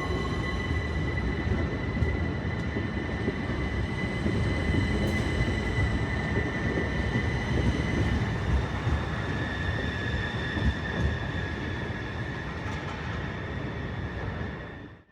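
Electric multiple-unit passenger train moving through the station: a low running rumble under steady, high-pitched squealing tones that dip slightly in pitch about two-thirds of the way through. The sound cuts off abruptly at the end.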